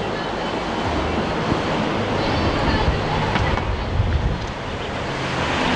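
Strong wind buffeting the microphone in irregular low rumbles, over a steady rush of rough surf.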